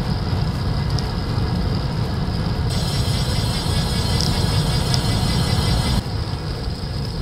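Steady wind rumble and road noise picked up by a bicycle-mounted camera while riding. The sound shifts abruptly twice, once partway through and once near the end.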